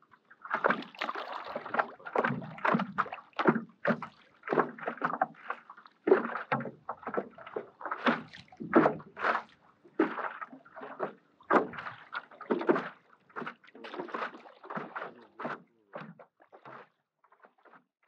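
Stand-up paddle strokes in lake water: irregular splashing and sloshing, cutting off abruptly at the end.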